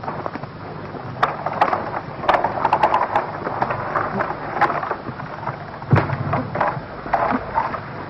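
Dry wood cracking and snapping with rustling of tall grass as a long dead branch is handled and dragged through the grass; a run of sharp cracks about two to three seconds in and one loud crack near six seconds.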